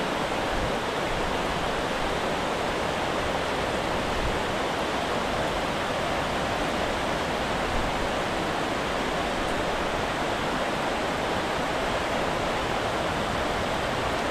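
Water pouring over a small waterfall, a steady, unbroken rush.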